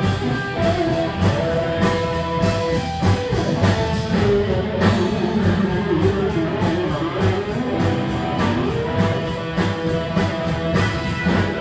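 Live blues band playing: electric guitars with bent, sustained notes over a steady beat.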